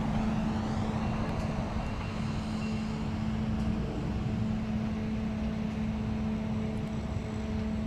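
Car driving along a road: steady tyre and engine rumble with a constant low hum.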